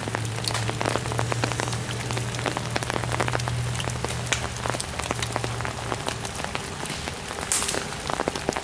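Rain pattering steadily on leaves as many small irregular drop ticks, over a low steady hum that fades out about six seconds in.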